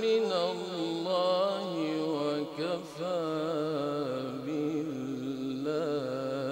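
Quran recitation in tajweed style: a single voice chanting, drawing out long melodic notes with wavering, ornamented pitch. There is a brief break about three seconds in.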